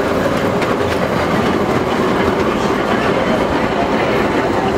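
Service tram and its steel-wheeled flatbed platform car rolling past close by, wheels running on street rails in a steady rumble, with a few sharp clicks a little under a second in.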